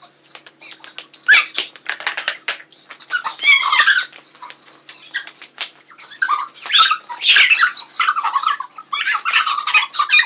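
Girls shrieking and squealing in several high-pitched bouts as they are sprayed with freezing-cold water from pump-action spray bottles, with short hisses of spray between the squeals.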